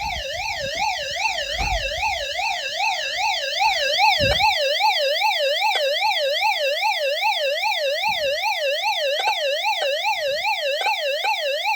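Electronic siren in a fast yelp, its pitch sweeping up and down about two to three times a second without a break. There is low rumbling under it in the first few seconds.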